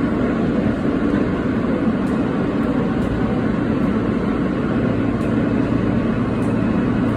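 New York City subway train in motion, heard from inside a car: a steady running rumble of wheels on rail and motors, with a strong low hum and faint clicks every second or so.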